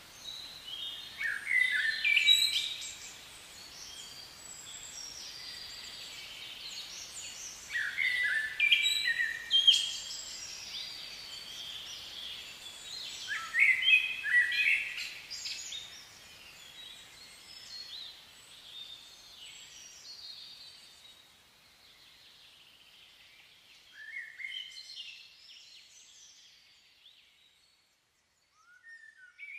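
A songbird singing short chirping phrases of about two seconds, repeated every few seconds and growing fainter toward the end, over a steady background hiss that fades away about two-thirds of the way through.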